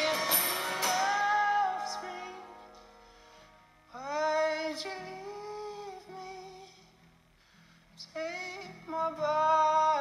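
A song with a woman singing slow phrases of long held notes, quieter gaps between them. A louder, fuller passage fades out over the first two seconds.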